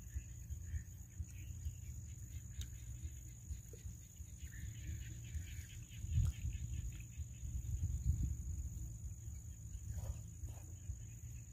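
Insects chirring in the field, one steady high unbroken note, over a low rumble.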